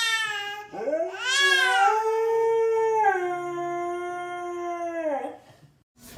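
Dog howling: one long drawn-out howl that swoops up at the start, holds, drops to a lower pitch about three seconds in, and trails off a little after five seconds.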